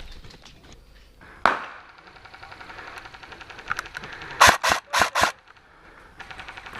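Airsoft gun firing: one sharp shot about a second and a half in, then four shots in quick succession a little after four seconds in.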